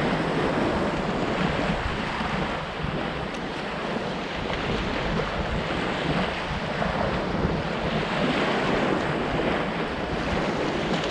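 Wind rushing across the microphone over the wash of waves at the shoreline, a steady unbroken noise.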